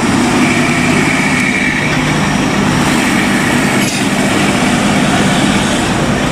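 Road traffic with heavy trucks' engines running steadily as they pass close by, under a wash of tyre and road noise.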